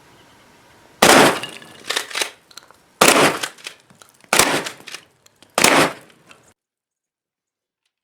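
Four shots from a Mossberg 500 pump-action .410 shotgun, about one to two seconds apart, each followed by a short echo, with smaller clacks between the shots as the pump is worked.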